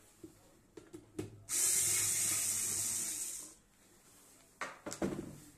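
A steady hiss that starts sharply about one and a half seconds in, lasts about two seconds and fades out. It is framed by light clicks and knocks from handling a stainless-steel electric kettle under repair.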